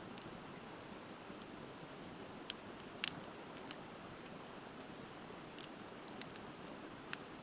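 Wood bonfire crackling, with scattered sharp pops, the loudest about three seconds in, over the steady rushing of a river.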